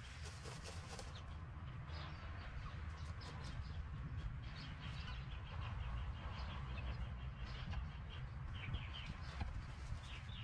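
Backyard chickens, a hen and her older chicks, clucking and chirping, with wild birds calling in the background and a quick run of repeated notes near the end. A steady low rumble sits underneath.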